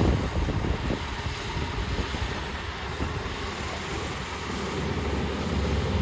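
Wind buffeting the microphone, gustiest in about the first second, over the steady running of a Kubota ER470 combine harvester cutting rice some way off.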